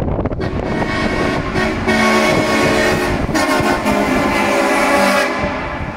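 Truck-mounted air train horn blasting loudly, several notes sounding together. The pitch changes from one blast to the next, with a brief break about three seconds in. Wind rumbles on the microphone.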